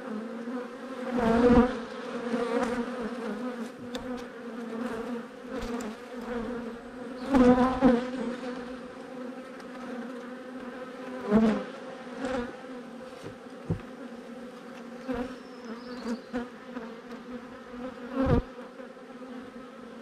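Honeybees buzzing steadily around an open hive, with a pitched hum that swells loudly twice as bees fly close past. A few short knocks, about 11 s in and again near the end, as frames are worked with a hive tool against the wooden box.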